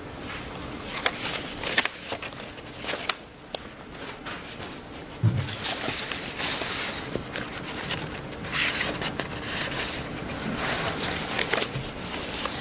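Papers and photographs being handled and shuffled: dry rustling and sliding in several stretches, with scattered light clicks and one dull thump about five seconds in.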